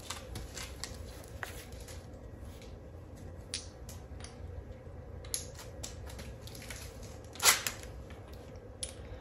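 Quiet workshop background hum with scattered light clicks, and one brief louder scrape about seven and a half seconds in.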